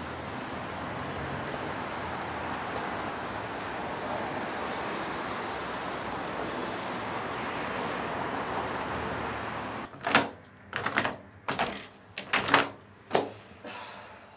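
A steady hiss of outdoor background noise. About ten seconds in it gives way to a run of about seven sharp clicks and knocks as a house door is shut and its knob and lock are worked.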